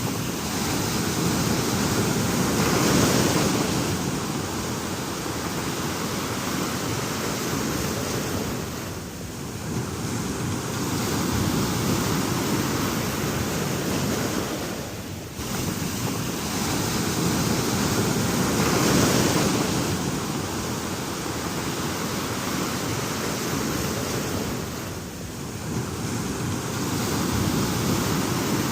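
Ocean surf: a continuous rush of waves breaking and washing in, swelling and ebbing, with brief lulls every several seconds.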